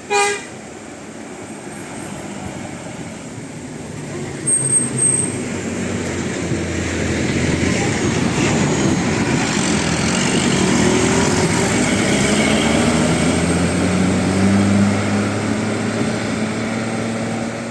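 A large diesel bus approaching and passing close by: its engine and road noise build from about four seconds in and stay loud until near the end, with no horn melody played. A brief sharp sound right at the start.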